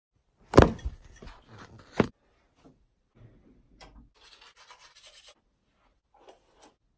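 Knocks and rubbing from a phone being handled close to its microphone in the first two seconds, then soft scratching strokes of a hairbrush pulled through hair.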